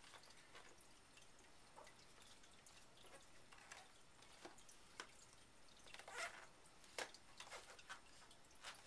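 Near silence, with a few faint clicks and light scrapes from a cardboard box being handled. The clearest come about five, six and seven seconds in.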